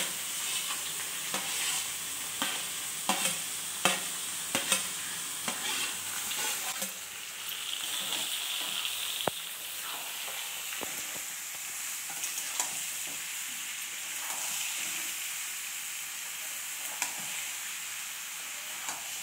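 Boiled, mashed jackfruit sizzling as it is added to hot mustard oil and fried onions in a metal kadhai, stirred with a metal spatula that scrapes and clacks against the pan, the clacks most frequent in the first several seconds.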